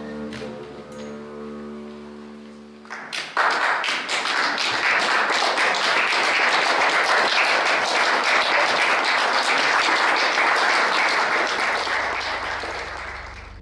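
The last held note of the music dies away, then audience applause breaks out about three seconds in, carries on steadily and fades out near the end.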